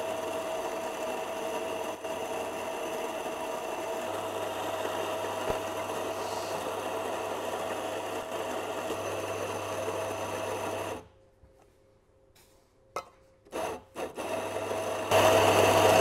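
Anfim SP2 commercial espresso grinder grinding coffee beans steadily for about eleven seconds, a run to bed in the new grinder's blades. It stops, a few light clicks follow, and a second, louder run of grinding starts near the end.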